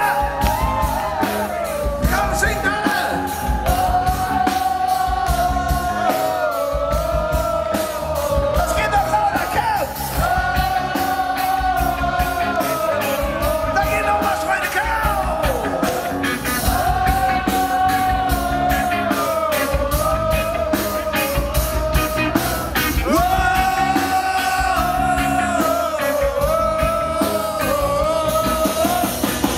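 Live rock band playing a song: a lead singer over electric guitar, keyboards and drums, with a steady beat.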